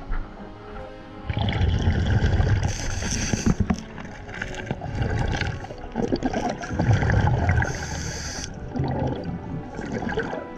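A scuba diver underwater, with uneven rushes of bubbling and rumbling from the regulator and from handling debris on the riverbed. The rushes start about a second in, and faint background music runs underneath.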